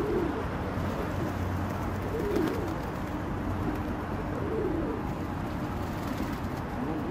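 Domestic pigeons cooing: a few low coos that rise and fall, spaced a second or two apart, over a steady low background hum.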